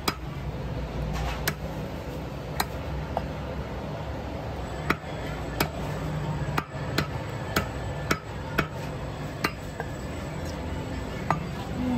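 Heavy butcher's cleaver chopping through chicken meat and bone onto a wooden chopping block: about a dozen sharp, irregularly spaced chops over a steady low hum.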